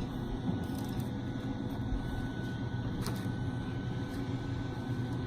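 A steady low mechanical hum with a thin, steady high whine above it, and one faint click about three seconds in.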